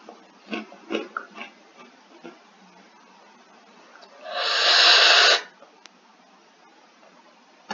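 A few soft mouth clicks and smacks from chewing, then about four seconds in one loud, forceful exhale blown out through the mouth for about a second, the kind of hard breath out of someone whose mouth is burning from hot chili puffs.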